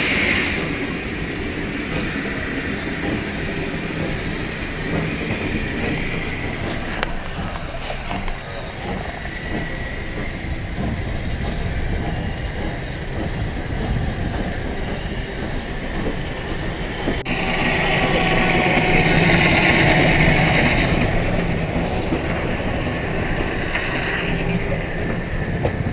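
Steam-hauled passenger train carriage running on the rails, heard from inside: a steady rumble and clatter of wheels on track. About two-thirds of the way through it turns suddenly louder and hissier for a few seconds.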